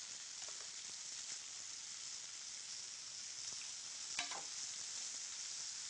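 Amaranth greens sautéing in olive oil in a pan, a steady sizzle, with a few light clinks of a serving spoon against a metal pan, one clearer about four seconds in.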